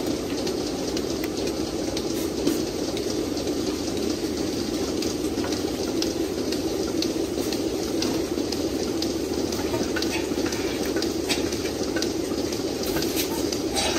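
Milking parlour machinery running steadily: a low hum with hiss from the vacuum system and milking clusters, with scattered light clicks.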